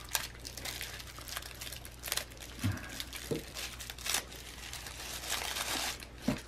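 Tissue paper crinkling and rustling as a small keychain is unwrapped by hand, in several short bursts with light clicks, the longest rustle near the end.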